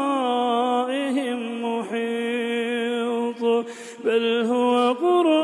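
A man reciting the Quran in melodic tajwid style, holding long drawn-out notes that glide up and down. There is a brief pause for breath about three and a half seconds in.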